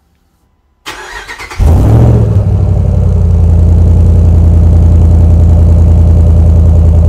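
Ram 1500 pickup's 5.7 Hemi V8 being started: the starter cranks briefly, the engine catches about a second later with a short flare, then settles into a loud, steady idle.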